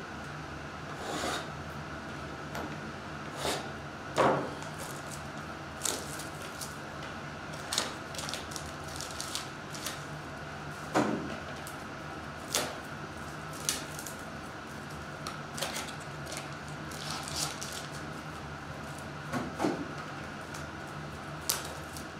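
Hands handling Star Wars Masterwork trading-card boxes and foil card packs: scattered crinkles, taps and rustles of cardboard and foil wrapper, a few sharper than the rest, over a steady faint hum.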